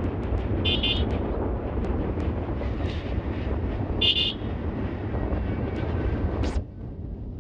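Bajaj Pulsar motorcycle riding along, its engine and wind noise running steadily, with two short horn beeps, about a second in and again about four seconds in. The noise drops suddenly near the end.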